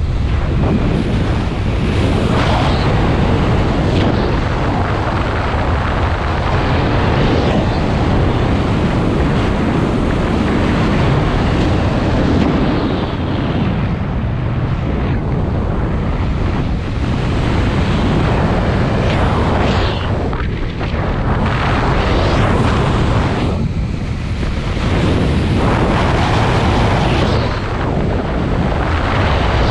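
Loud wind rushing over a body-mounted camera's microphone as a speedflyer flies fast and close along a slope, a steady buffeting rush that eases briefly in its hiss several times.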